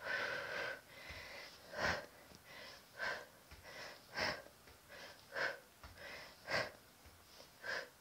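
A woman breathing hard, with a short, sharp exhale about once a second, in time with her knee-drive reps in a plank.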